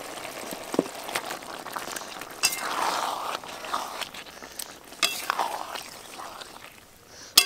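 Marinated Bombay duck pieces sliding into simmering masala in a metal wok, sizzling, while a metal spatula scrapes and clinks against the wok. There are sharp metallic clinks about two and a half seconds in, around five seconds in, and the loudest one near the end.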